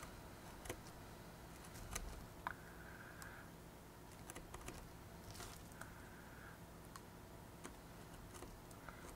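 Faint, irregular small clicks and paper sounds from snipping and handling a paper model kit with small scissors.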